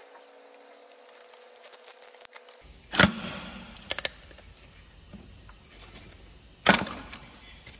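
Metal clanks as a piston ring compressor sleeve is worked over a piston in an OM 460 engine block's cylinder liner: two sharp metallic knocks with a ringing tail, about four seconds apart, with a couple of lighter clicks between them.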